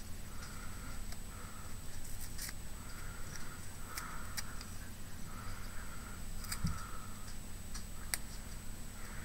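Small handling noises from craft work: scattered light clicks and soft rustling, over a low steady hum and a faint high-pitched whine.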